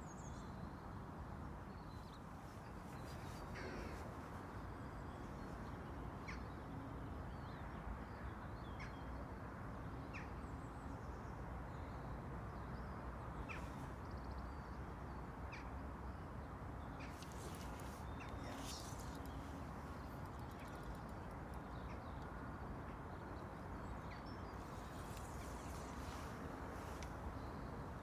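Steady rush of flowing river water, with short bird calls dotted throughout and bursts of clicking and rustling about two-thirds of the way in and near the end.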